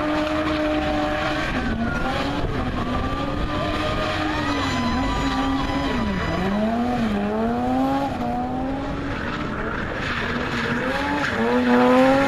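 A BMW E30's engine held at high revs while the car spins, the engine note rising and falling with the throttle and dropping sharply about six seconds in, with tyres screeching as they are spun and worn down.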